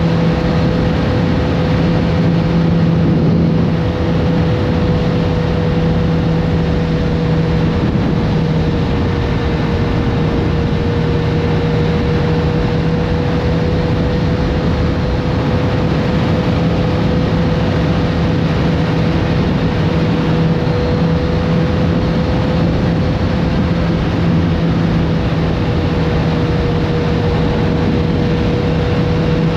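Kawasaki Z900RS Café's inline-four engine running at a steady cruise under wind and road noise, its pitch holding nearly constant with only slight rises and dips.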